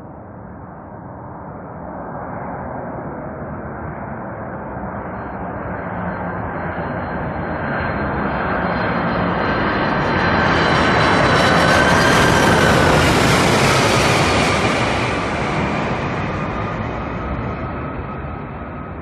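Boeing 747 airliner on landing approach passing close by: jet engine noise with a high fan whine builds steadily, is loudest about two-thirds of the way through, then the whine drops in pitch as the aircraft passes and the sound fades.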